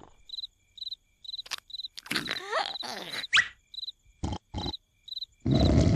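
Cricket chirping, short high chirps about two a second in a quiet pause, with a few clicks and short sliding squeaks in the middle. A loud snore starts again about half a second before the end.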